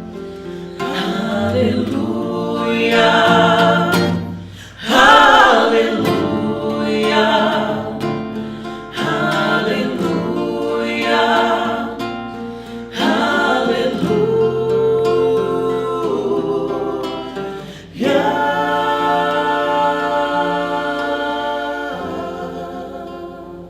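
A vocal trio singing a gospel song in close harmony, in phrases of about four seconds, ending on a long held chord that fades out near the end.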